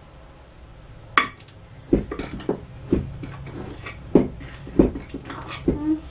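Spoons knocking and scraping against bowls as slime is stirred and lifted out, with about seven sharp clacks spread irregularly from about a second in.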